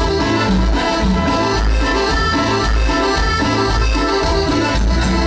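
Live Latin tropical dance band playing loud through a PA sound system: a melody over a steady bass beat about twice a second, with percussion.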